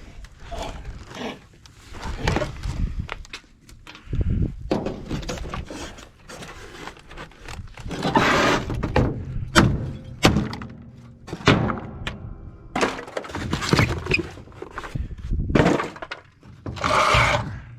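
Scrap metal from a torn-down air conditioner thunking and clattering as it is broken apart and handled, with irregular knocks and a few louder crashes.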